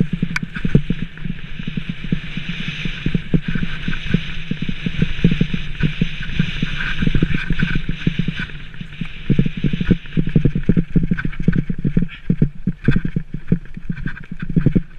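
Rockrider 520S mountain bike rattling and jolting down a rough dirt track, with many short knocks from bumps over a steady rush of tyres and wind on the microphone.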